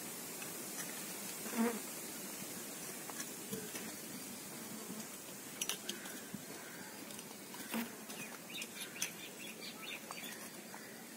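A small hand hoe (khurpi) digging and scraping into stony garden soil, with scattered sharp clicks as the blade strikes stones, several in quick succession near the end.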